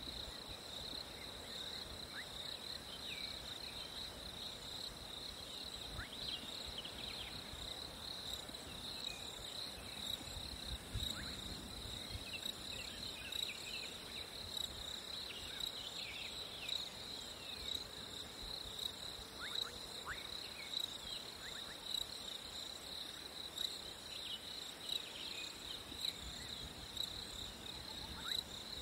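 Crickets chirring in one continuous high-pitched drone, with faint short chirps scattered over it.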